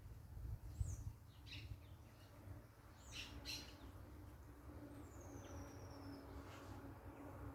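Birds calling faintly: a few short high chirps, then a long falling whistle, over a low rumble and a steady low hum.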